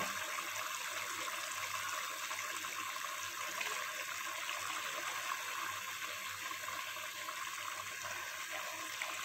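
Steady sizzling hiss from a pot of chicken masala cooking on the stove, with no sharp knocks or breaks.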